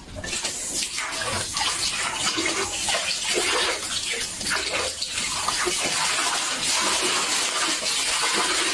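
Water running steadily and loudly, as from a tap or shower into a bathtub, starting abruptly.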